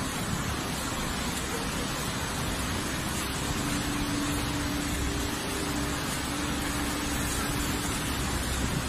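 Fast, muddy floodwater rushing down a concrete channel, a steady, unbroken rush of water noise.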